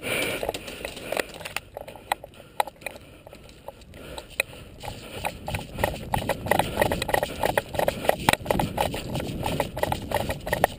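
Footsteps hurrying over dirt, with the player's gear jostling against the camera. The steps become louder and more regular about halfway through.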